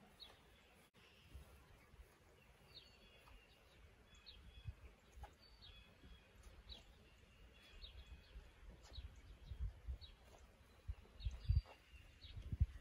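Faint chirping of small birds, short high calls repeated every half second or so. Underneath is low rumbling that grows louder in the second half, with several dull thuds near the end.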